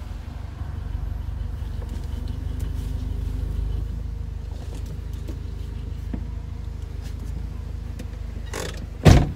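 A vehicle's engine running with a steady low rumble, swelling a little a few seconds in as it is manoeuvred slowly into a parking space. Near the end comes one short, loud thud, most likely a vehicle door shutting.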